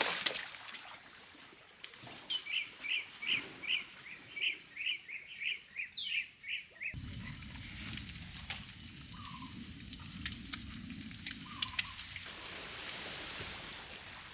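A bird calling a quick run of short chirps, about three a second, for roughly four and a half seconds. The chirps then stop and give way to a low, steady outdoor rumble with a few faint clicks.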